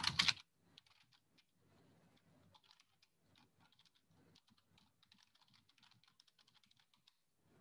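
Computer keyboard typing: a faint, irregular run of quick key clicks.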